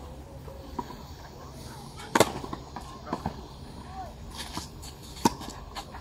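Tennis rally on a clay court: sharp pops of racket strings striking the ball, the loudest about two seconds in and another about five seconds in, with fainter ball bounces and hits between.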